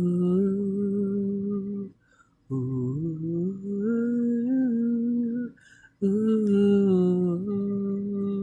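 A single voice sings a wordless, hummed melody in three phrases, with short breaths between them. The last note is held steady at the end.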